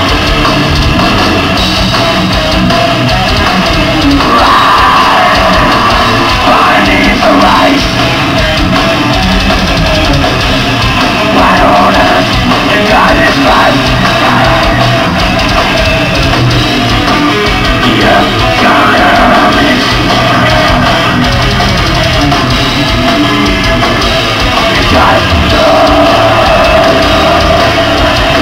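Death metal band playing live at full volume: distorted electric guitars and bass over a pounding drum kit, with no breaks.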